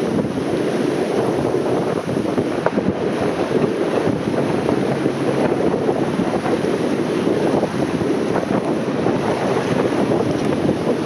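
Steady wind buffeting the microphone over the rush of water and waves around a boat at sea.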